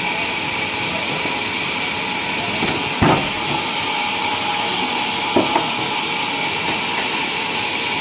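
Sawmill machinery running steadily: a loud high hiss with a constant whine under it. Two short knocks sound about three and five and a half seconds in.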